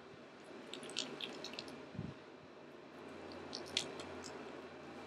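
Wet porcelain clay squelching under a potter's hands as it is pressed on a spinning wheel: two short clusters of small wet smacks and drips, about a second in and again near the end, with a soft thump in between.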